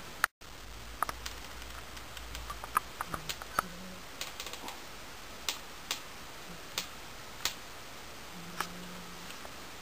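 Scattered light clicks and taps at irregular intervals, a couple of dozen over the stretch, thickest in the first half, over a steady low hiss.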